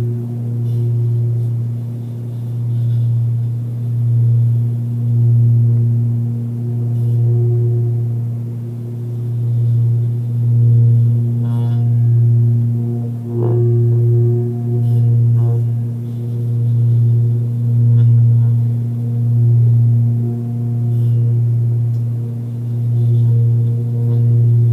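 A 28 cm forged Sun Moon singing bowl sounds a deep hum at about 117 Hz with higher overtones above it. The hum swells and fades in a slow wobble about every second and a half. A brief click near the middle briefly brings out the higher overtones.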